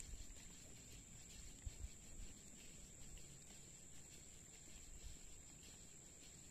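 Near silence: a faint, steady high-pitched drone of forest insects, with a low rumble underneath.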